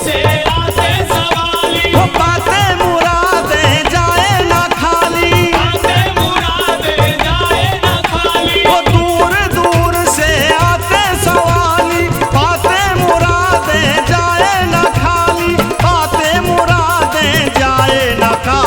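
Instrumental interlude of a Hindi devotional bhajan: a wavering melodic lead with vibrato over a steady, busy drum beat, with no voice singing.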